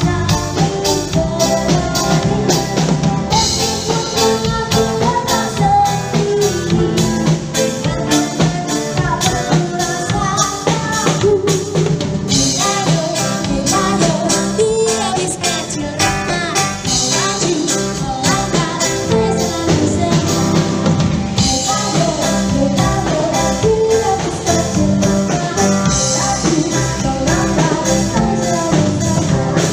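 Background music: an upbeat song with singing over a steady drum beat.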